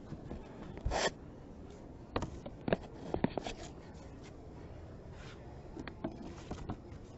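Close handling noise from painted boards being handled against the body-worn camera: rubbing and scraping, with a short scrape about a second in and a few sharp clicks and knocks between about two and three and a half seconds in.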